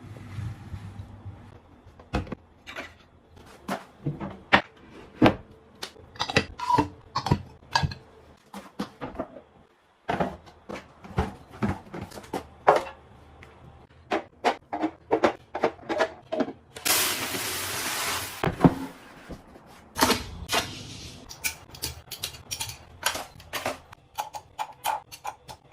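Items being handled and set down in kitchen organizing: a long run of separate clicks, taps and knocks of containers and lids, with a brief rushing hiss about 17 seconds in.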